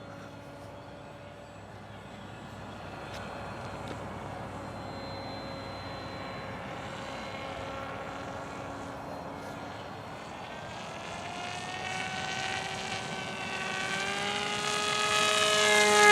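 Radio-controlled model airplane's motor and propeller droning in flight, faint at first, then growing louder and rising slightly in pitch over the last few seconds.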